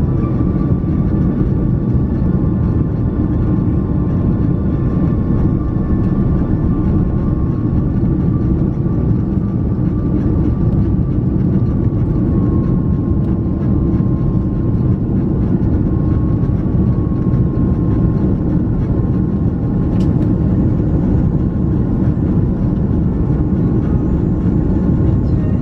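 Steady roar of an Airbus A330's jet engines and rushing air heard inside the passenger cabin in flight, with a faint held whine that drifts slightly in pitch.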